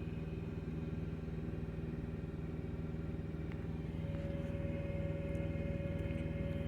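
A steady mechanical hum made of several fixed tones, with a higher steady tone joining about four seconds in.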